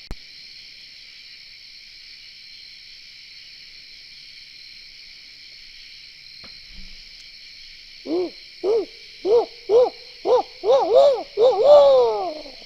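An owl hooting: a run of about nine hoots, starting about eight seconds in, that come faster and faster and end on a longer falling note. Underneath is a steady high chorus of night insects.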